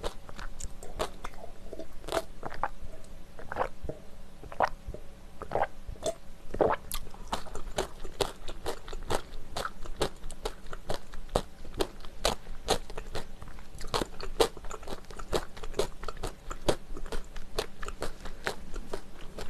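Close-miked mouth sounds of someone chewing crunchy food, a dense irregular run of crisp crunches and clicks.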